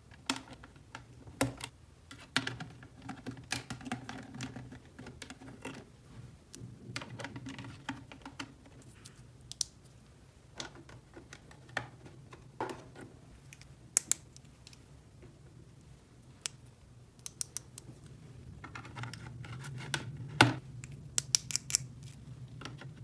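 Hands handling small, light toy or craft pieces: irregular light clicks, taps and scraping. The sharpest click comes about twenty seconds in, followed by a quick run of clicks near the end.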